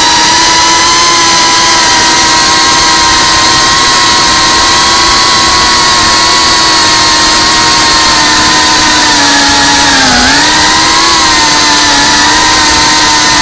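FPV quadcopter's electric motors and propellers whining at a steady pitch as it flies. The pitch dips briefly about ten seconds in as the throttle eases, then comes back up.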